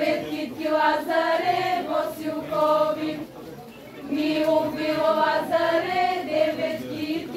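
Lazarki, a group of girls, singing a Bulgarian lazarki ritual song together in a chant-like folk melody, two phrases with a short breath between them about three seconds in.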